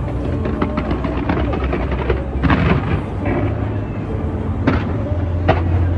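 Fireworks bursting in a dense, ongoing barrage of bangs and crackles, the heaviest bangs about two and a half, four and a half and five and a half seconds in, over a deep steady low hum.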